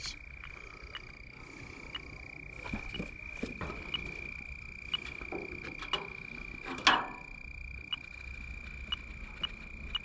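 Handheld heated-diode refrigerant leak detector (Fieldpiece DR58) ticking slowly and evenly, about two ticks a second, over a steady high whine. This is its idle rate, with no refrigerant picked up at the probe. A single louder knock or scrape comes just before seven seconds in.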